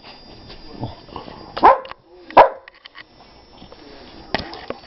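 A dog barking: two sharp, loud single barks less than a second apart, with a fainter bark before them and a shorter sound near the end.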